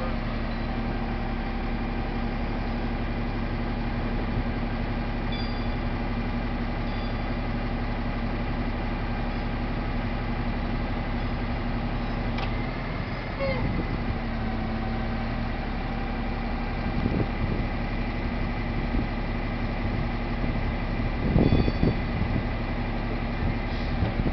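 The bucket truck's 5.9 Cummins diesel running steadily, driving the hydraulics of the Versalift boom as it moves the bucket. There is a brief rattle about halfway through and a few louder clunks near the end.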